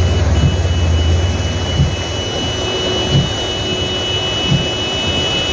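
Motor vehicle engines running through floodwater under a steady wash of rain and water noise. A heavy low rumble in the first second and a half eases off, and a dull low thump repeats about every second and a half.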